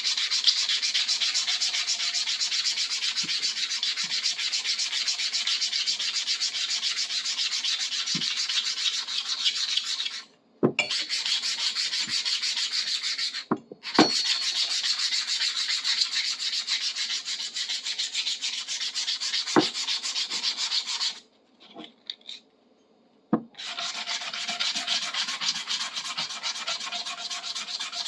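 Sandpaper rubbing quickly back and forth over the rusty steel of a large adjustable wrench to take the rust off. The rubbing stops briefly twice and then for a couple of seconds near the end, with a few light knocks between strokes.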